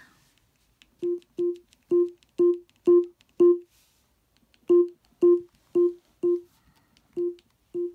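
Amazon Echo Dot sounding its short feedback beep at each press of its top volume buttons, about two a second. Six beeps rise in loudness as the volume goes up, and after a brief pause six fall in loudness as it goes down.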